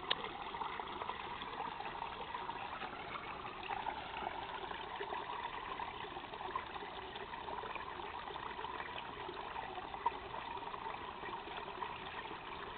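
Water trickling steadily along a shallow irrigation channel.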